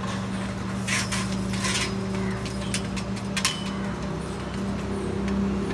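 A steady low mechanical hum, like an idling engine. Over it come three short knocks in the first few seconds as a wooden dip rod is worked in the neck of an underground petrol tank.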